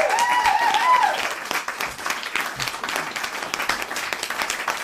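Crowd applause and cheering: dense clapping, with high whoops rising and falling in the first second.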